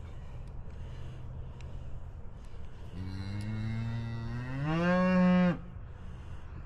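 One long bovine bawl that rises in pitch near its end and cuts off suddenly, from the cattle around a newborn calf being held down for ear tagging.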